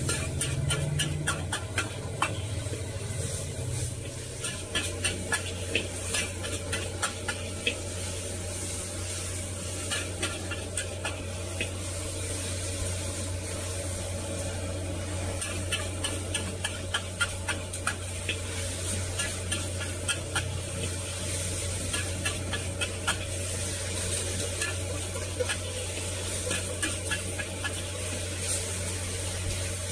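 A metal ladle and spatula scrape and clatter against a wok in quick, irregular strokes as rice vermicelli is stir-fried, over a steady sizzle. A steady low hum runs underneath.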